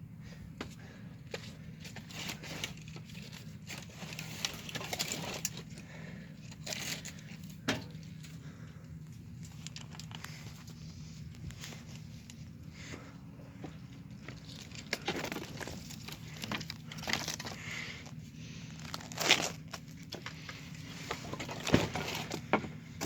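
Rustling and crackling of a phone or camera being handled close to the microphone, with scattered sharp clicks and a few louder crackles near the end, over a faint steady low hum.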